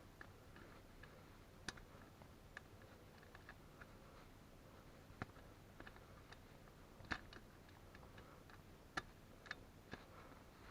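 Faint, irregular small clicks and light taps over near silence, a few of them sharper, like small objects being handled.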